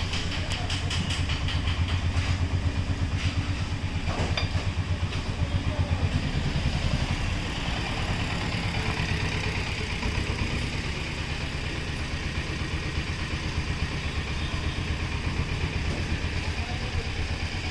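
An engine running steadily at idle, with an even low hum and a fine, regular pulsing.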